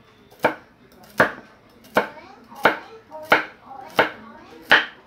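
Cleaver chopping celery on a cutting board: seven sharp chops at a steady pace, about one every three-quarters of a second.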